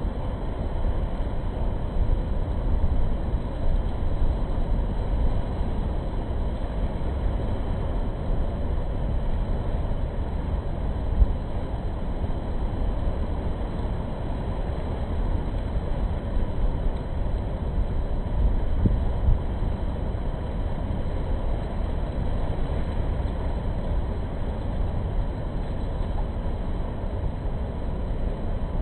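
Whitewater river rapids rushing over rocks: a steady, deep rush of churning water, with one brief bump about eleven seconds in.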